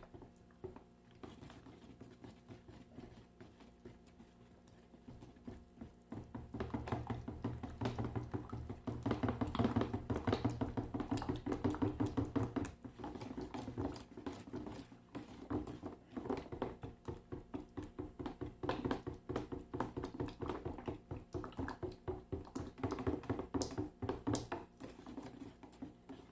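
Plaster being stirred in a large metal coffee can, a fast run of even scraping and tapping strokes against the can that gets louder about six seconds in.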